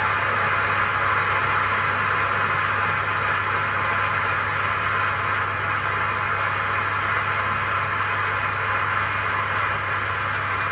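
Theatre audience applauding at the end of the pas de deux: dense, steady clapping, with a low steady hum underneath.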